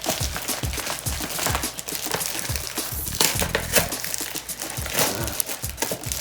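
Packaging being handled and pulled open: irregular crinkling and rustling with sharp little clicks and snaps.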